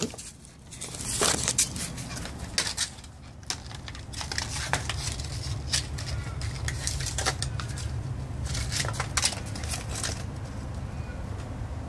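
A Kelpie puppy worrying and dragging a toy on paving tiles: scattered scuffs, clicks and scrapes of claws and toy on the hard floor, over a steady low hum.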